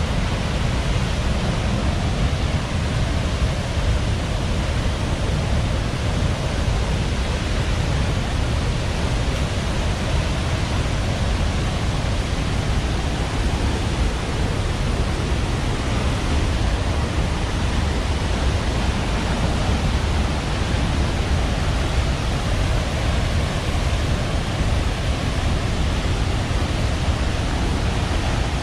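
Athirappilly Falls, a large waterfall, pouring with a loud, unbroken rush of water, heaviest in its low rumble, heard close to the plunge where the spray soaks everything.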